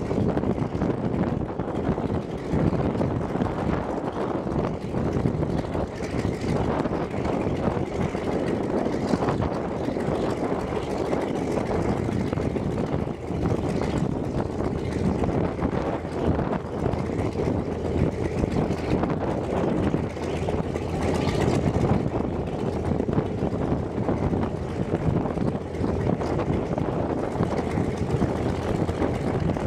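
Antonov An-2's nine-cylinder radial engine idling steadily, its propeller turning, with the aircraft standing still.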